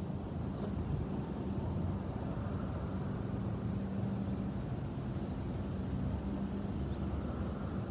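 Steady low rumble of distant road traffic, with a faint high, short falling chirp repeating about every two seconds.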